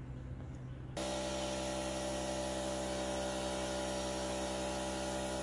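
Air compressor motor running steadily with an airy hiss, blowing antifreeze through an in-ground pool's return jet line during winterizing. It cuts in abruptly about a second in, over a quieter low hum.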